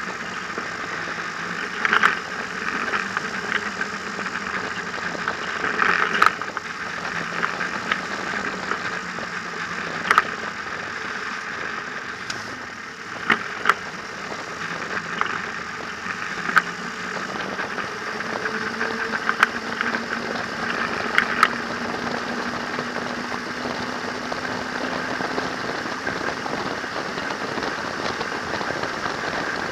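Trike engine running under way, its low note rising slowly in the second half, under steady wind and road noise. Sharp short knocks or rattles break in every few seconds.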